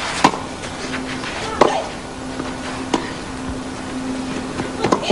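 Tennis rally on a clay court: racket strikes on the ball, four hits roughly a second and a half apart, over a steady crowd murmur and a low constant hum.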